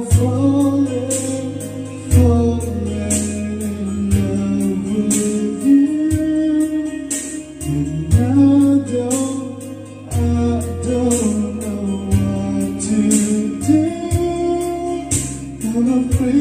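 Karaoke song played by a Megapro Plus karaoke player: a backing track with bass, guitar and a steady beat of about two strikes a second, with a voice singing the melody along with it.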